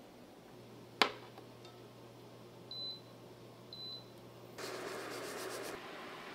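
A sharp knock, then two short high electronic beeps about a second apart from an induction burner's control panel, over a faint low hum. Near the end a burst of rushing noise lasts about a second.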